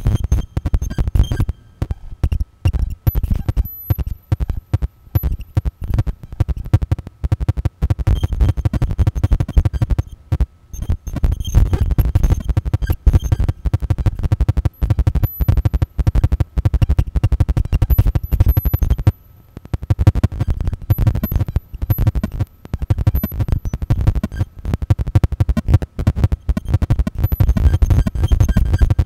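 Live generative electronic noise music from an algorithmic fractal system: a dense, rapid stutter of clicks and pulses over a heavy low rumble. It drops out for about a second roughly two-thirds of the way in, then resumes.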